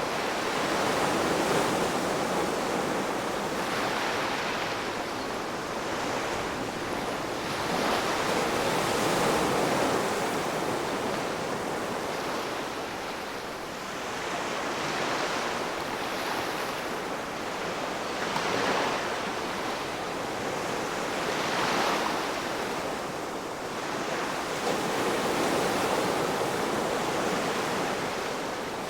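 Ocean waves breaking on the shore, a steady wash of surf that swells and eases every few seconds as each wave comes in.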